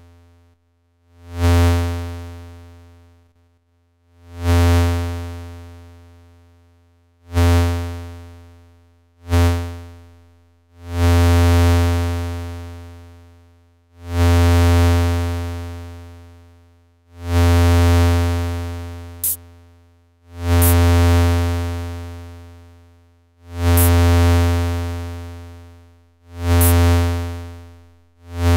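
A low, buzzy synthesizer oscillator tone shaped by a Make Noise Contour envelope through a VCA, sounding as a string of notes on one pitch about every two to three seconds. Each note starts sharply and fades away. The envelope is self-cycling, and as the knobs are turned the later notes hold at full level briefly before a longer fade. A short click sounds about two-thirds of the way through.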